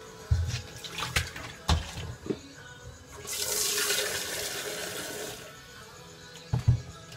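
A few sharp knocks of things handled at a kitchen sink, then water running from the tap into a plastic pitcher for about two seconds, and two more knocks near the end.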